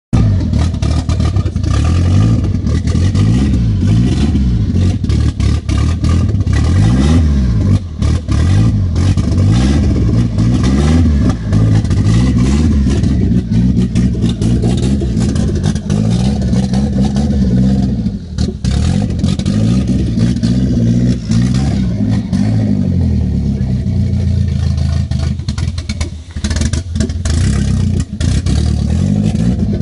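Turbocharged VW Gol G4 1.6 engine running, its speed rising and falling repeatedly. The engine is on its first tune after a new fuel line and SPA .48 turbo kit were fitted.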